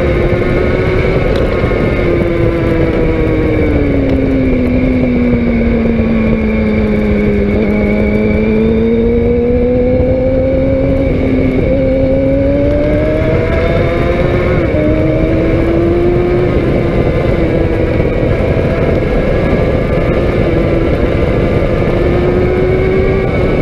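Sport motorcycle engine heard on board while riding through curves. Its note sinks for several seconds as the throttle eases, then climbs back with a couple of abrupt pitch steps, over heavy wind and road rush.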